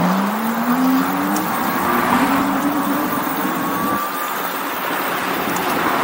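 An e-bike's 2000 W 52 V rear hub motor whining as it pulls away, its pitch rising over the first second and a half and then holding steady, with a fainter higher whine above it. Steady wind and road noise runs underneath.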